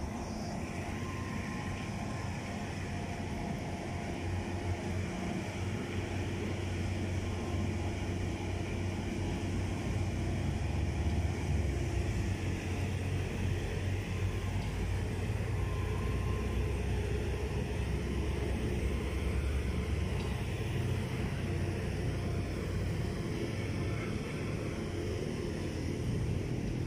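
Steady low rumble of heavy construction machinery running, with a faint steady engine hum over it.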